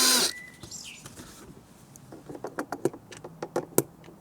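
A power screwdriver's whine cuts off just after the start, then a run of irregular light clicks and taps of hard tools and screws on the pressure washer's plastic casing, from loosened screws stuck down their holes.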